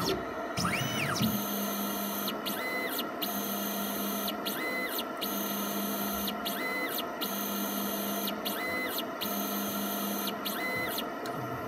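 Pipetting motors of a PATHFAST analyser cycling its pipette tips through repeated draw-up and push-out strokes over the magnet block for Magtration bead separation. A low hum about a second long alternates with a short whine that ramps up, holds and ramps down, about every two seconds.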